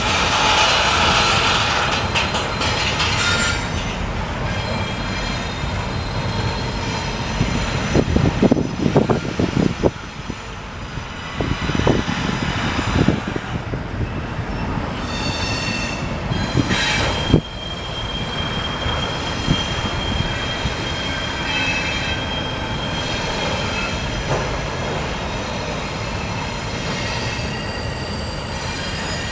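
Double-stack intermodal container train rolling past, with steel wheels squealing in thin high tones. There is a cluster of clanks and knocks from the cars between about 8 and 12 seconds in, and a single sharp bang at about 17 seconds.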